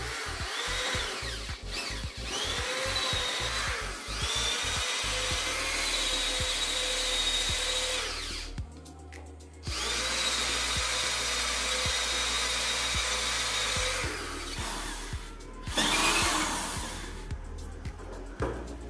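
Cordless drill drilling holes into a wooden door and frame to fit a door bolt. It starts in several short trigger bursts, its whine rising as it spins up, then runs in two long steady stretches with a short stop between them, and a louder, rougher run near the end.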